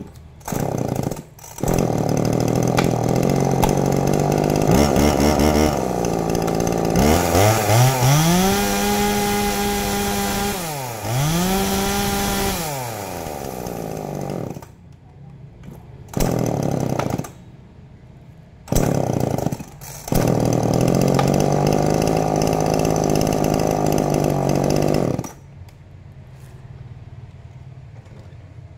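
Husqvarna two-stroke chainsaw started, idling and revved up twice to a high steady pitch, then cutting out about 14 seconds in. It fires twice briefly, runs again for about five seconds, and stops.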